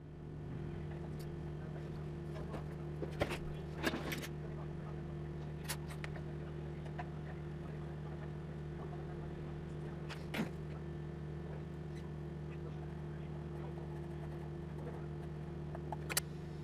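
Steady low hum with a few fixed tones, broken by a handful of light clicks and taps.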